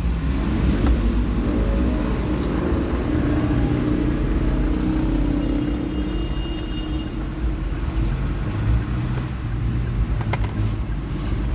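Steady low motor-vehicle rumble, with a few light clicks and taps.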